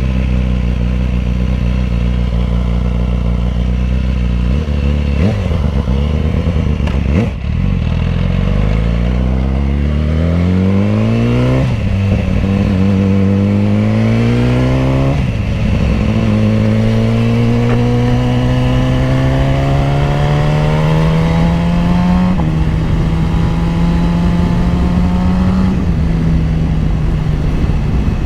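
2010 BMW S1000RR's inline-four engine pulling hard under acceleration. Its note climbs in pitch gear after gear, dropping sharply at each of three upshifts, then holds at a steady speed near the end.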